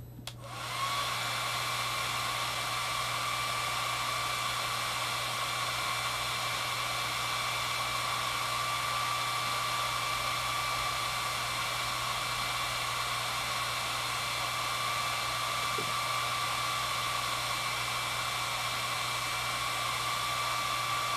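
Hair dryer switched on just as the sound begins, then running steadily: an even rushing noise with a faint steady whine.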